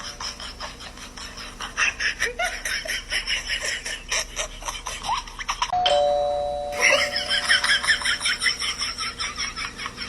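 Two-tone ding-dong doorbell chime sounding once, a little before the middle, the higher note first and then the lower, fading over about two seconds. A fast run of clicks or taps goes on through most of it.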